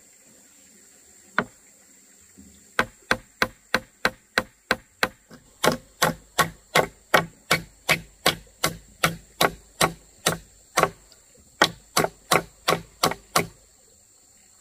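Steady rhythmic chopping: a blade striking down onto wood, about three strokes a second, after a single strike about a second in, with a brief pause near the end.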